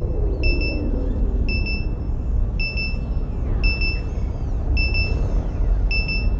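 Science-fiction sound effects: a spaceship's deep rumble with a short, high electronic beep repeating about once a second, the signal of a call beacon being picked up. A falling whoosh passes through the rumble in the first couple of seconds.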